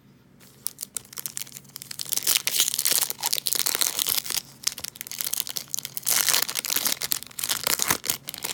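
Wrapper of a baseball card pack being torn open and crinkled by hand, a busy crackling rustle in several bursts.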